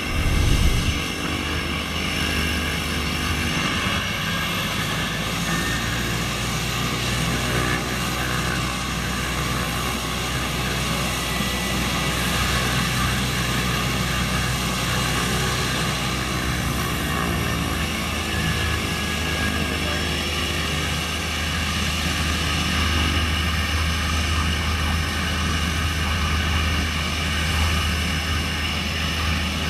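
Cessna 208B Grand Caravan's Pratt & Whitney PT6A turboprop running steadily at low power on the ground: a propeller drone with a high turbine whine over it. There is a brief low thump about a second in.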